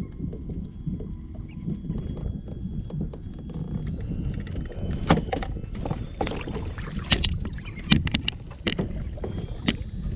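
Wind and water rumble around a fishing kayak, then from about halfway a run of sharp splashes and knocks against the hull as a big red drum is netted and landed.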